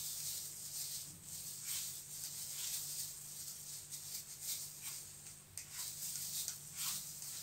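Hand vegetable peeler scraping the skin off an apple in a run of short, irregular strokes, over a steady low hum.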